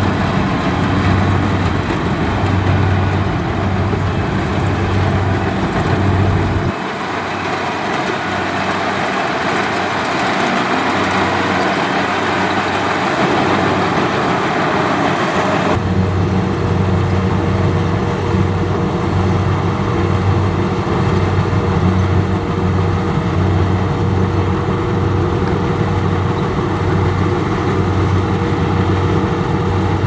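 Kubota DC-70 rice combine harvester running in the field, its diesel engine and threshing machinery going steadily as it cuts rice. The low engine note pulses evenly; the sound changes abruptly about seven seconds in, with less low rumble, and again about sixteen seconds in, when the rumble returns together with a steady whine.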